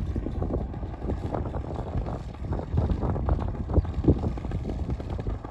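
Gusty wind buffeting the microphone: an uneven low rumble that swells and drops in gusts.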